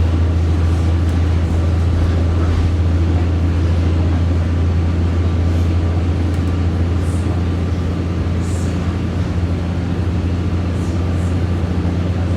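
Steady low drone of a SMART diesel multiple-unit train running, heard from inside a passenger car, with a faint steady tone above the hum.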